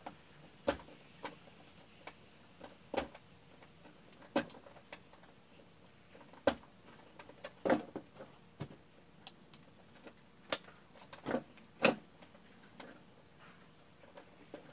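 Scattered light clicks and taps, irregular and roughly a second apart, from hands working a plastic switch plate, electrical wires and a screwdriver while wiring a light switch.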